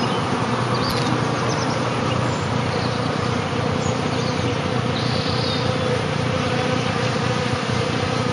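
Bees buzzing steadily around flowering safflower.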